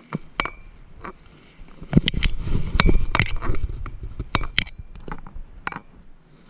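Rubbing, scraping and knocking handling noise on a body-worn camera's microphone, with a string of sharp clicks and a heavy rumble that is loudest a couple of seconds in.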